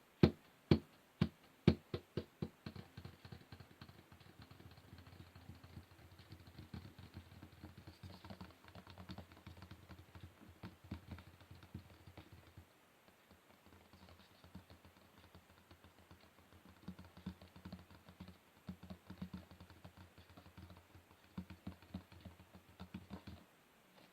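Fingernails tapping on wood. A few sharp taps about two a second at the start quicken into rapid, light clicking that runs on, with a short pause about halfway through.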